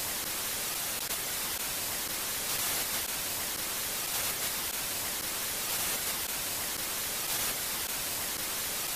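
Steady hiss of TV-style static, a white-noise sound effect.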